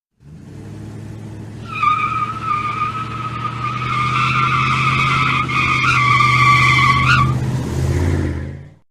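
Car tyres squealing in a long, high-pitched skid, starting about two seconds in and stopping a little after seven seconds, over the car's engine running steadily underneath.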